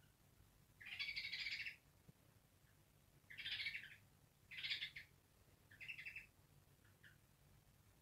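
African grey parrot barking angrily: four short, gritty calls, the first about a second long and the rest shorter, with quiet pauses between them.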